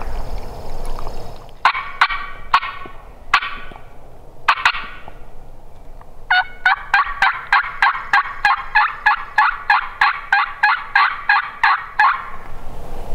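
Turkey yelping: a few separate yelps and clucks, then a long, even run of about twenty yelps at roughly three a second.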